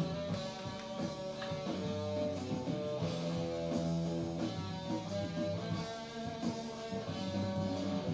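Background music led by guitar, with chords that change every second or so.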